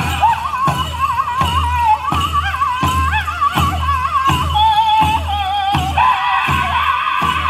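Powwow drum group singing a men's chicken dance song: high, wavering voices over a large hand drum struck in unison at a steady beat, a little under one and a half strokes a second.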